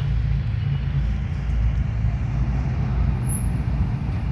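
Steady low rumble with a constant hum, like road traffic or a running machine in the background.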